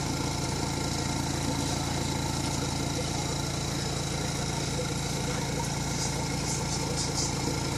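Steady mechanical hum with a faint hiss from running aquarium equipment, even throughout with no changes.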